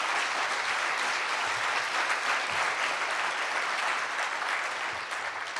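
Audience applauding steadily, thinning out near the end.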